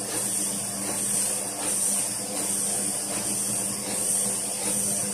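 Autoprint sheet-fed offset printing press running: a steady machine hum with a high hiss, swelling about once a second as it cycles.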